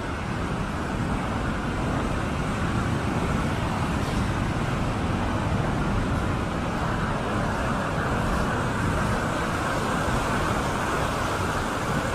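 Mountain river in spate rushing over rocks in white-water rapids: a steady, loud rush of water that grows a little louder over the first two seconds as the rapids get nearer.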